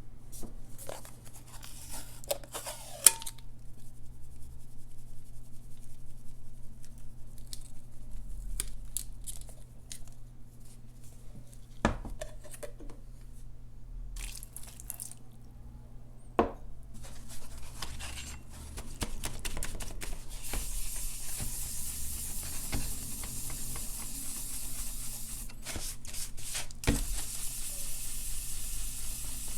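Scrubbing sponge rubbing a wet ceramic sharpening stone with Barkeeper's Friend cleanser, lifting the loaded metal out of it. Scratchy strokes and a few knocks at first, settling into steady scrubbing about two-thirds of the way in.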